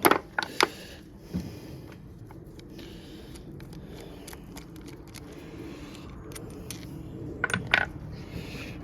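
Metal hand tools and small engine parts clinking and scraping: several sharp clinks right at the start, one more a second later, and a short cluster near the end, over a steady low hum.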